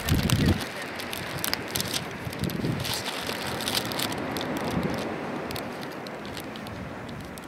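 Cellophane wrapping on a bunch of flowers crinkling in irregular sharp crackles as it is handled and laid down, over wind rumbling on the microphone.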